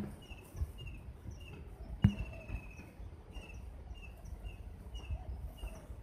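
A small songbird repeating a short, high, slightly falling call note about twice a second, with one longer drawn-out note about two seconds in. A single sharp knock sounds at that same moment.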